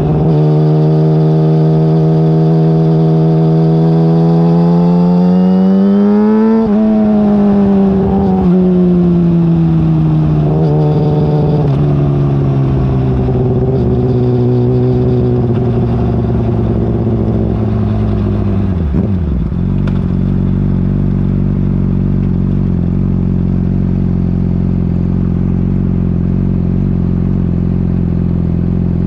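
Yamaha R6 inline-four engine running through an Akrapovic exhaust. The note holds steady, climbs to a peak about six seconds in, then falls away slowly as the revs drop. About two-thirds in it settles into a low, steady idle.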